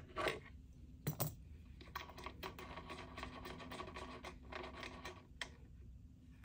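A small metal screw clamp being unscrewed and worked loose through the f-hole of a semi-hollow bass body: a couple of sharp knocks about a second in, then a quick run of light metallic clicking and scraping for a few seconds.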